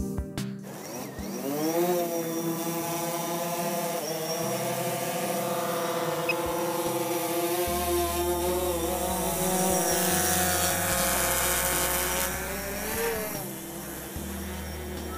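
DJI Phantom 4 Pro quadcopter's motors and propellers spinning up with a rising whine over the first couple of seconds, then running at a steady buzzing whine whose pitch wavers slightly.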